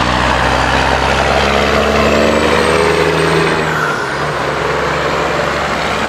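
Diesel semi truck pulling an end-dump trailer driving past, its engine running steadily and loudly over road noise.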